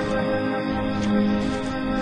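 Slow, soft new-age soundtrack music of long held notes.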